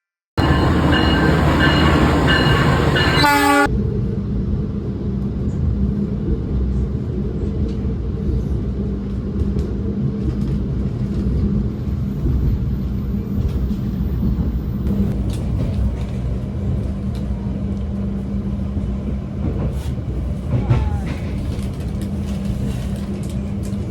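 A train horn sounds for about three seconds. The passenger train then runs on steadily with a low rumble and hum and occasional clicks.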